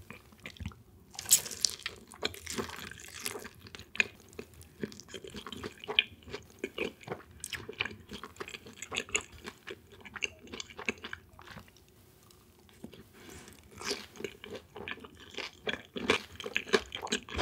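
Close-miked chewing of crispy, sauced boneless fried chicken, with crunchy bites and wet mouth clicks, pausing briefly in the middle.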